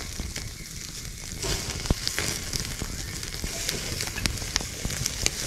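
Squid tentacles sizzling on a grill straight over an open fire, with scattered sharp pops and crackles.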